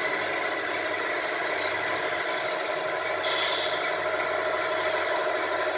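Radio-controlled scale model trucks running: a steady mechanical whine of several layered tones, with a short hiss about three seconds in.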